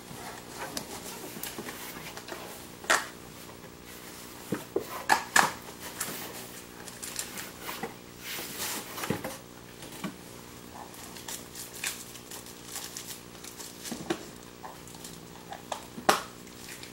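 Packaging and a small boxed card game being handled while items are pulled out of a mystery box: scattered crinkles and taps, the sharpest about three and five seconds in and again near the end, over a faint steady hum.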